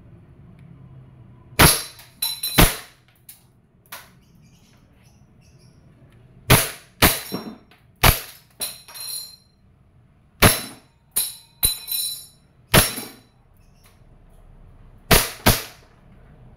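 WE Glock 17 gas blowback airsoft pistol firing single shots, each a sharp crack of the gas and the slide cycling, some followed by the metallic ring of BBs hitting a steel spinner target. About a dozen sharp reports come in uneven groups. The last shot empties the magazine and leaves the slide locked back.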